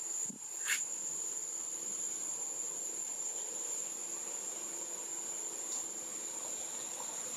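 Insects droning: one steady, high-pitched buzz without a break, with a short sharp sound less than a second in.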